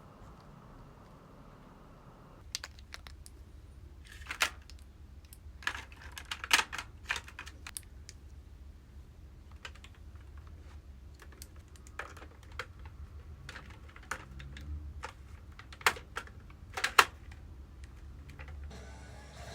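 Scattered sharp clicks and light knocks at an irregular pace, a few of them louder, over a low steady hum that comes in after a couple of seconds.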